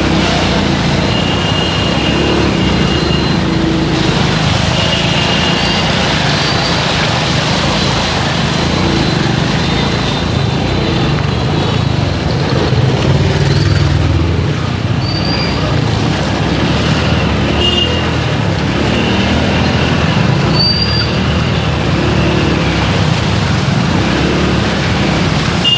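Street traffic: vehicle engines running steadily, with short high-pitched beeps every few seconds and faint voices underneath.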